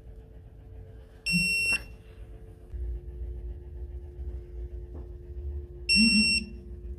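Two high electronic beeps from a Snap-on digital torque wrench, each about half a second long, the second about four and a half seconds after the first.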